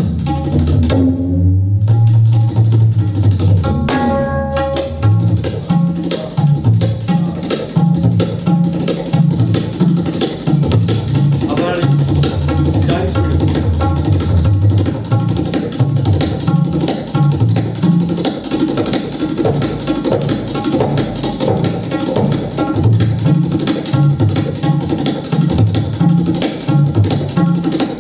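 Tabla played without pause in a fast, dense stream of strokes, imitating the rhythm of a running train. A couple of sliding bass-drum notes sound in the first few seconds.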